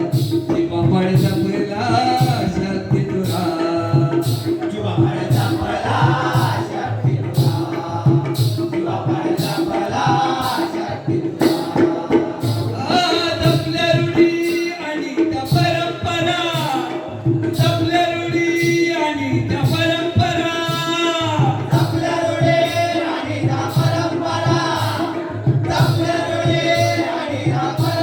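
Jakhadi folk music: male voices singing over a steady hand-drum beat and a held drone note, the singing growing fuller about halfway through.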